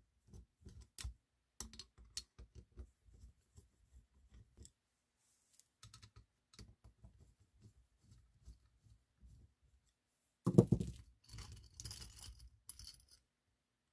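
Faint scattered clicks and ticks of a screwdriver backing screws out of a small 12-volt tire-inflator compressor's metal head. About ten and a half seconds in there is a louder clatter of parts being handled, the loudest sound here, followed by more small handling noises.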